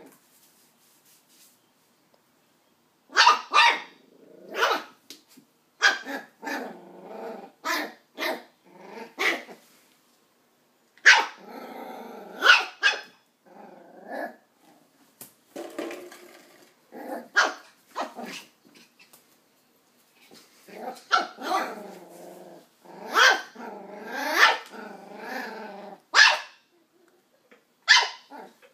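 A nine-week-old West Highland White Terrier puppy barking in short, sharp yaps with low growls between them, at an empty plastic bottle. The barking starts about three seconds in and comes in bouts with short pauses.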